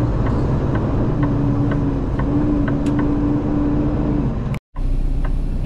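Semi truck's diesel engine and road noise heard from inside the cab while driving, a steady low rumble with a held hum and faint ticks about twice a second. The sound drops out for an instant about four and a half seconds in.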